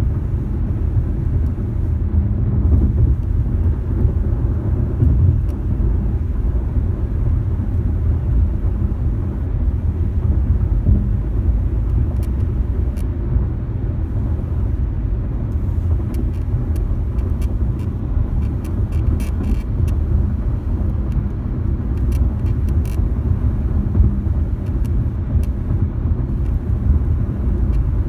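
Steady low road rumble inside the cabin of a moving 2018 Lexus RX 450h. Faint, scattered squeaks from the driver's seat come through from about halfway in.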